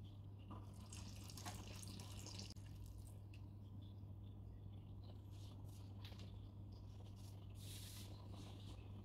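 Faint trickling and dripping of water poured from a long-spouted watering can into a potted plant, over a steady low hum.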